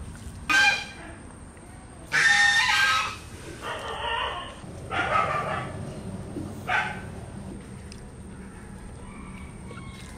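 Domestic animal calls, of the kind of a dog barking and a rooster crowing: several short calls and one longer, louder call about two seconds in.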